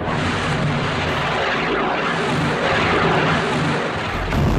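Loud, steady rushing noise that starts suddenly, with a deeper rumble coming in near the end.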